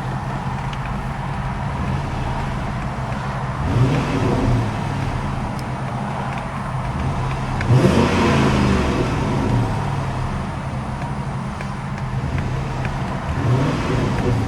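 Chrysler 300C's 5.7-litre HEMI V8 idling with three quick blips of the throttle, the middle one the biggest. Each rev rises and falls straight back to idle.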